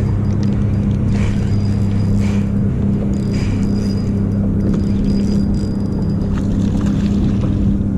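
A boat motor runs steadily with a low hum. Soft swishes come about once a second over it.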